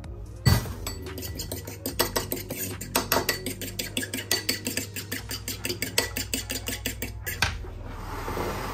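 A fork beating egg yolk and milk in a small bowl, its tines clicking rapidly against the bowl several times a second. A sharp clink sounds about half a second in, and a knock near the end.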